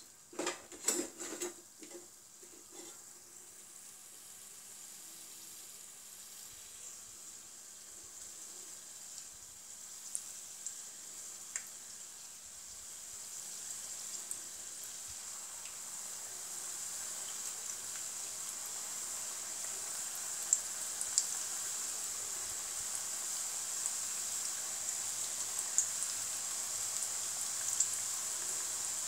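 Hot oil sizzling as dough-wrapped sweet potato toffees are dropped in one after another to deep-fry, with scattered sharp pops. The sizzle grows steadily louder as the pan fills. A few knocks come about a second in.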